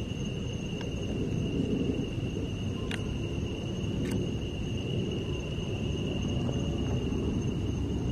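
Steady high-pitched trilling of night insects over a low rumble, with a few faint clicks.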